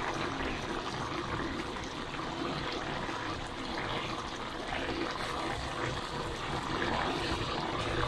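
Bottle gourd and sardine stew bubbling at a steady simmer in a metal pan.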